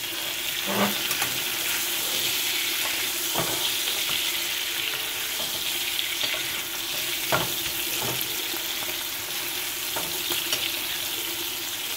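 Steaks searing in butter in a stainless-steel skillet over a high flame: a steady sizzle, with a few sharp clicks as the basting spoon knocks against the pan.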